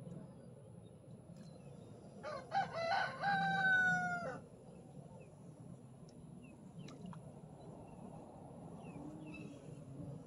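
A rooster crows once, a call of about two seconds that starts roughly two seconds in, rising at first and then held on one pitch before breaking off.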